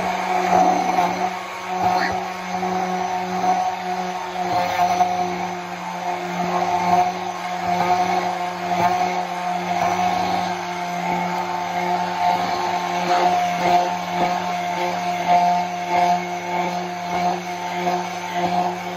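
Hand-held immersion blender running steadily, its stainless steel blade down in a jar of tahini, water, lemon juice and salt, whipping it into a creamy tahini sauce.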